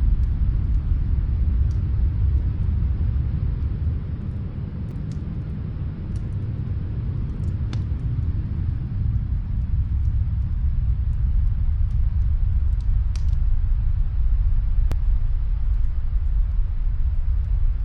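Steady low rumbling snowstorm wind that eases slightly about a third of the way in, with a few faint crackles of a fireplace.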